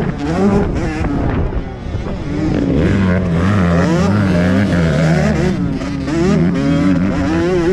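Motocross dirt bike engine revving under riding load, its pitch rising and falling over and over as the throttle opens and closes and the gears change. The revs hold fairly steady for a couple of seconds in the middle.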